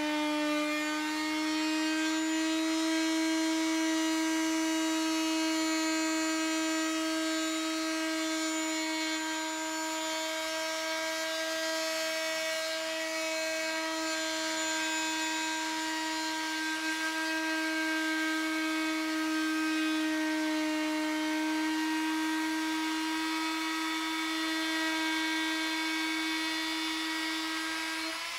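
Corded oscillating multi-tool running steadily while its blade cuts through the truck's plastic front bumper cover along a tape line: an even high-pitched buzz that holds its pitch, winding down right at the end.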